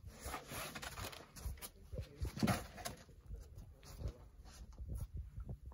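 A boulderer's forceful, breathy exhales of effort while pulling through moves on a sandstone boulder, two of them, the louder about halfway through, with short scuffs and taps of shoes and hands on the rock.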